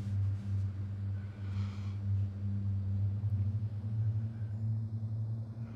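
A steady low drone that swells and fades slightly, with no clear source.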